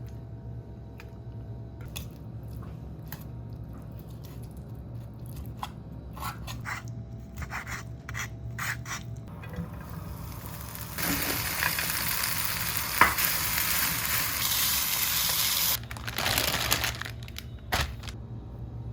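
Food frying in hot oil, sizzling loudly for about five seconds past the middle, then cutting off suddenly, with a shorter sizzle just after. Before it come scattered light clicks and taps.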